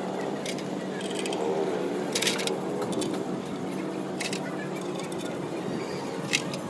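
Workshop background: a steady hum with a few sharp metallic clicks and clinks, and voices murmuring in the background.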